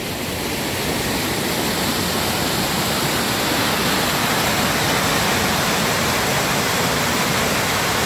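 A river running high, its white water rushing through a narrow rocky chute in a steady, loud rush that grows a little louder about a second in.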